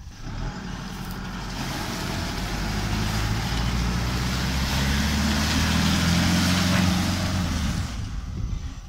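Isuzu D-Max 3.0 Ddi four-cylinder turbodiesel pulling hard in four-wheel drive up a muddy slope, with a broad hiss of tyres churning through wet grass and mud. The engine grows steadily louder for about seven seconds, then eases off near the end.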